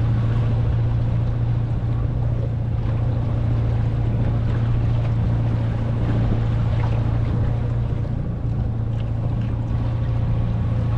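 Small wooden skiff's engine running steadily at low speed with an even low hum, recently serviced with new spark plugs.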